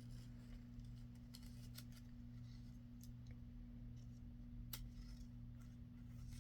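Faint, scattered clicks and ticks of paper and craft tools being handled, over a steady low electrical hum.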